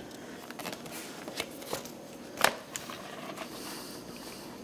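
Handling noise of a tablet being worked out of its case: scattered clicks and rubbing, with one sharper knock about two and a half seconds in.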